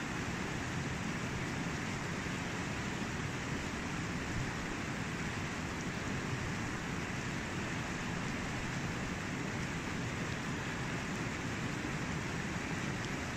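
Shallow, rocky river running over stones: an even, steady rush of water.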